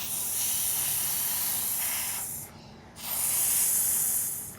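A child making the phonics sound for the letter F: a long, steady "ffff" hiss through the lips, said twice with a short break between.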